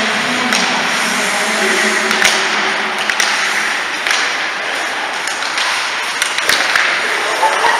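Ice hockey play close to the goal: several sharp clacks of sticks and puck over a steady hiss of skates scraping on the ice.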